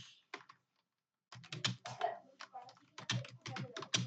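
Typing on a computer keyboard: a few keystrokes, a short pause about half a second in, then a rapid run of key clicks.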